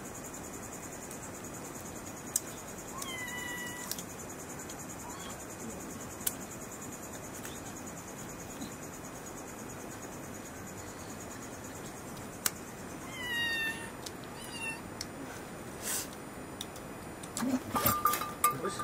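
A domestic cat meowing: a short meow about three seconds in and a couple more around thirteen to fifteen seconds, over a steady high chirring of crickets. A few sharp clicks come in between, and there is a louder clatter near the end.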